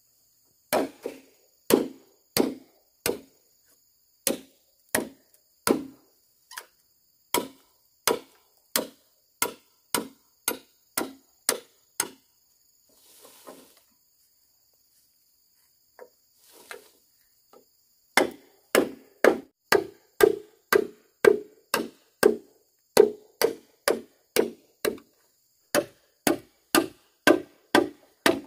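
Repeated chopping: a blade striking wood in regular strokes, about one and a half a second. The strokes stop for several seconds about halfway through, then resume faster, about two a second.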